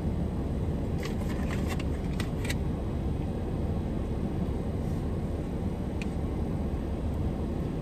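Steady low rumble inside a parked car's cabin, with a few light clicks of a plastic takeout container and spoon being handled, a cluster between one and two and a half seconds in and one more near six seconds.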